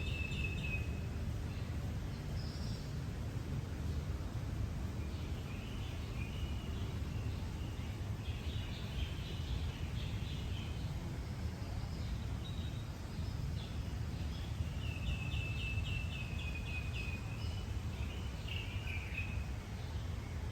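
Birds singing and chirping in short phrases, with a quick run of about eight repeated notes about three-quarters of the way through. Under them is a steady low rumble of sea waves.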